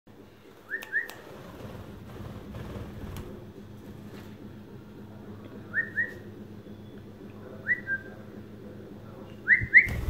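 A person whistling in short paired notes that each glide upward, four pairs spaced a few seconds apart, calling to a pet lovebird.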